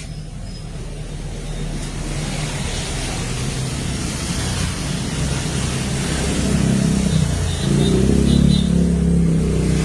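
A motor vehicle's engine passing close by, growing steadily louder to a peak near the end and starting to fade just after.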